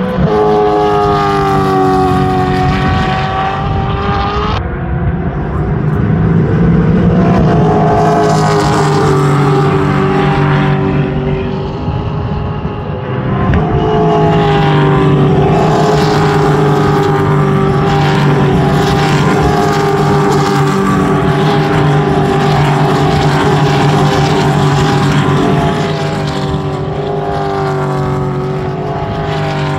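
Several Supercars V8 race cars going past one after another at racing speed, their engine notes overlapping and changing as each car arrives. The noise is loud throughout, with a brief dip around twelve seconds in.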